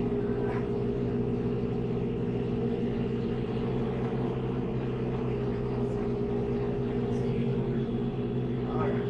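Tractor's diesel engine running steadily under load, heard from inside the cab, while it drives a wide rotary cutter mowing tall grass and brush.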